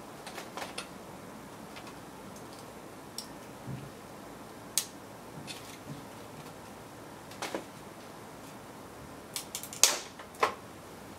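Scattered light clicks and taps of a graphics card being handled and turned over during disassembly, with a quick cluster of sharper clicks near the end, over a steady faint hiss.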